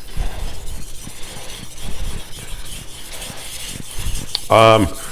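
Swedish carbon steel kitchen knife stroked back and forth on a wet 1000-grit whetstone: repeated scraping strokes of steel on stone.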